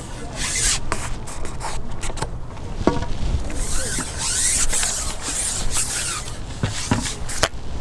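Close handling noise: rustling and rubbing with scattered sharp clicks and knocks, over a low wind rumble.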